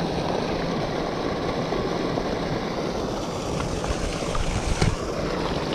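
Steady rush of splashing water from a pond fountain. A short splash comes about five seconds in as a released bluegill drops back into the pond.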